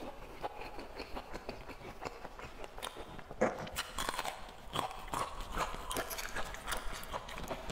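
Crunching and chewing picked up close by a clip-on microphone: crisp crackles of chewing, with a sharp crunch about three and a half seconds in as a raw red radish is bitten, followed by more crunchy chewing of the radish.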